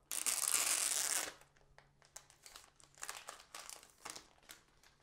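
Clear plastic protective wrap being pulled off a new smartphone: a loud crinkling rip lasting about a second, then shorter crinkles as the plastic is handled.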